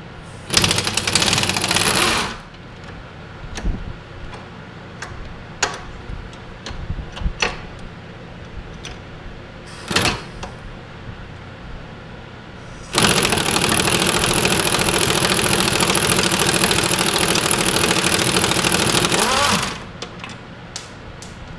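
A power wrench running a steering rack mounting nut off in bursts. A short burst comes about half a second in and a brief one near ten seconds, then a long steady run of about six and a half seconds winds down near the end. Clicks from the tool and socket fall between the bursts.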